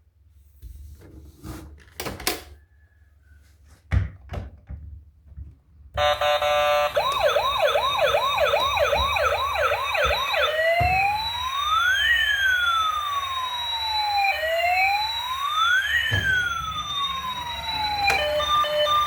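Clicks and a knock from a toy being handled, then a toy emergency vehicle's electronic siren switches on about six seconds in: a fast warbling yelp about twice a second, then slow rising-and-falling wails. Near the end it changes to a steady pulsed beeping.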